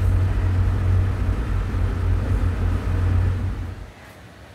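Low, steady rumble of a car driving along a highway, heard from inside the cabin. It drops away sharply near the end.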